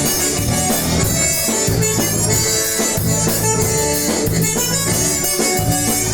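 Band music in an instrumental break with no singing: a lead melody of held notes over a steady, repeating bass line.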